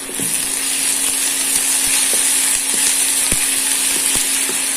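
Onions, green chillies and freshly added ginger-garlic paste sizzling in hot oil in a non-stick pan as a wooden spatula stirs them, with a few light knocks of the spatula. A steady low hum runs underneath.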